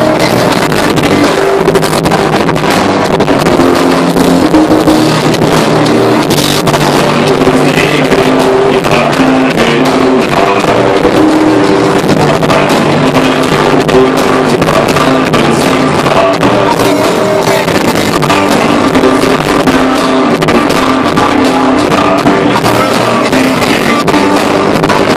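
Live rock band playing a song, guitars and drums together, loud and unbroken.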